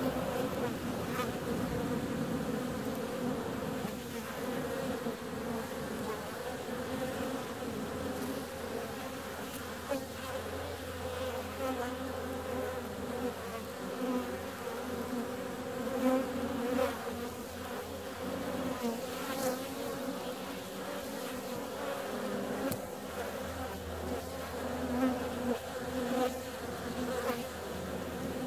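Honeybees buzzing in flight at the hive entrance: a steady, wavering hum of many bees, swelling briefly now and then.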